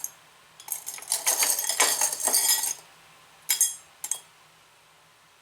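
Metal hair pins clinking and rattling against each other and their container as they are rummaged through, in a run of jingles for about two seconds, then two short clinks, then quiet hiss.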